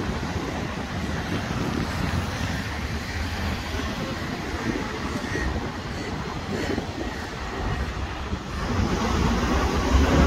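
Road traffic: cars driving through a multi-lane intersection, a steady rush of engines and tyres that grows louder near the end.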